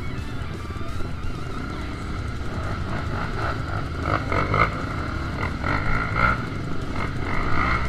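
Dirt bike engine running, with a continuous low rumble and pitched tones that pulse and rise in level from about three seconds in.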